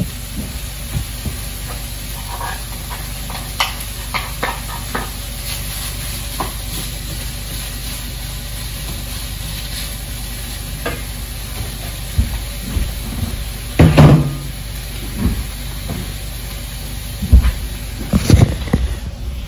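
Rice and pork frying in a hot oiled pan with a steady sizzle, broken by scattered scrapes and knocks as rice stuck to the bottom of a bowl is scraped out into the pan; the loudest knock comes about fourteen seconds in, with a cluster near the end.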